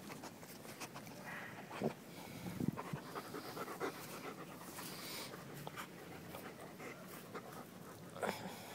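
Bernese mountain dog puppy panting softly, with light rustling and small clicks.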